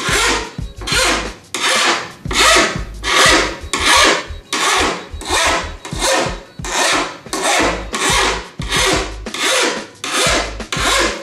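Household hand file rasping back and forth along a snowboard's steel edge in steady, even strokes, about three every two seconds. The edge is being detuned: the factory-sharpened edge is rounded off so it won't catch on rails or boxes.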